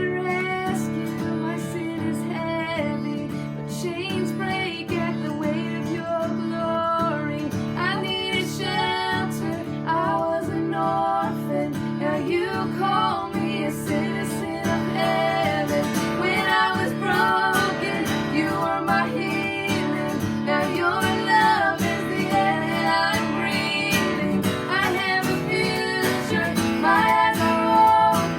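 Worship song with strummed acoustic guitar and a voice singing.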